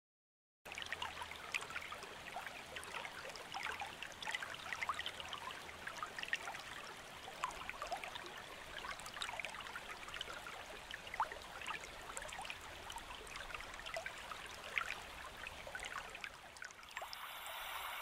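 Small creek trickling and babbling, a steady wash of water with many little splashes and bubbles through it. About sixteen seconds in the water sound stops and a steadier, fainter hiss takes over.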